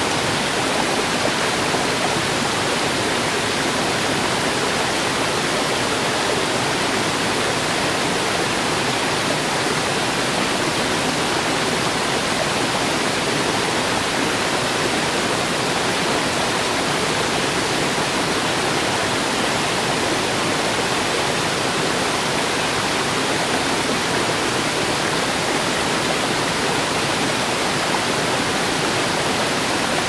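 A tropical rainforest waterfall and a rocky stream running close by, a steady, even rush of falling and flowing water that does not change.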